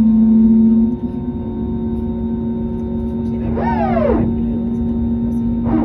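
Steady cabin hum inside an Airbus A321neo on the ground, several fixed tones from the cabin air and ventilation system, dipping slightly in level about a second in. A brief falling, voice-like sound comes about three and a half seconds in, and a shorter one near the end.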